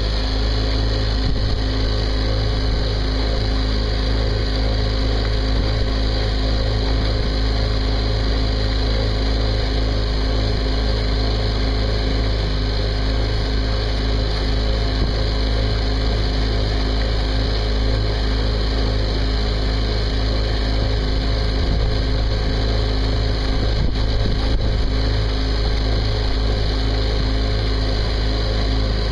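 Small inboard diesel engine of a Mirror Offshore sailing yacht, a single-cylinder Volvo Penta MD1, running at a steady speed as the boat motors along, with a low, unchanging drone.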